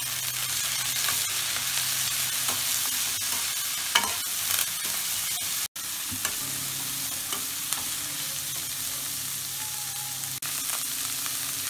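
Vegetables (shredded cabbage, carrots and capsicum) sizzling in hot oil in a metal kadai while a metal spatula stirs and tosses them, scraping and clicking against the pan. The sound breaks off for a moment about halfway through.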